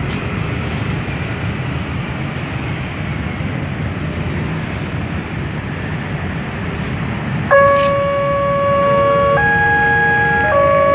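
Road traffic noise, then, about three-quarters of the way through, an Indonesian railway level-crossing warning alarm starts up suddenly: a loud electronic two-note tone switching pitch back and forth every second or so, signalling that a train is approaching and the barrier is about to close.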